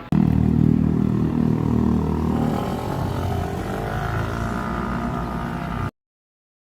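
A loud, steady motor or engine sound that starts abruptly, with a tone rising in pitch partway through, and cuts off suddenly near the end.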